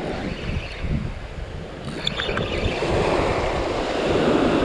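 Surf washing onto a beach, with wind buffeting the microphone; the wash dips and then swells again in the second half.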